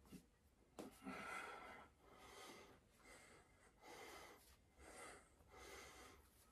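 A man breathing hard from exertion during a HIIT workout: about five loud, rasping breaths, each under a second, with a short knock about a second in.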